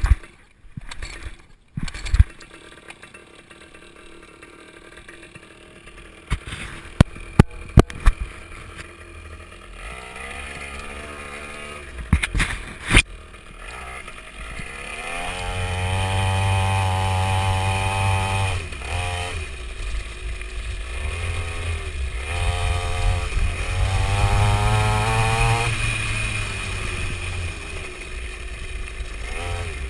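Several sharp knocks, then a 49cc two-stroke mini dirt bike engine picks up about ten seconds in and runs, revving up and down in repeated surges and getting louder from about fifteen seconds in.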